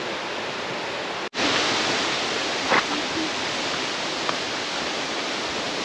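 Steady rushing of a waterfall, broken by a very brief dropout just over a second in, after which it is a little louder. A single sharp click comes near the three-second mark.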